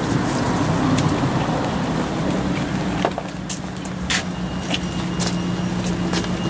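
Road traffic: a motor vehicle running close by, a steady noisy rumble with a low engine hum that settles in about two seconds in, and a few light clicks and taps over it.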